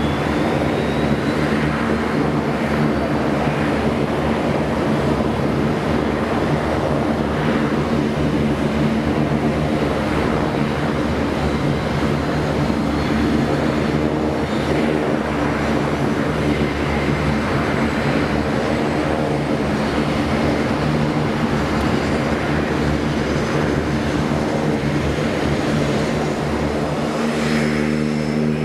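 Saab 2000 turboprop running on the ground, its Rolls-Royce AE 2100 engines and six-blade propellers giving a steady, loud propeller drone with a faint high turbine whine. The drone grows stronger near the end.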